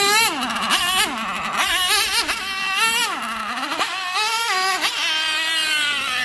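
Small fuel-burning engine of a radio-controlled monster truck revving up and down several times with the throttle, then holding a steady high pitch near the end as it runs.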